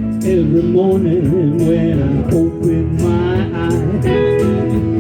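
Live band music: a sung melody over instruments, with a steady beat of short percussion hits.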